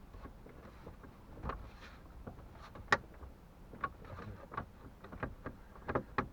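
Irregular clicks and knocks of a car's dashboard trim panel being handled and pressed into place, with one sharp click about three seconds in and a quick run of knocks near the end.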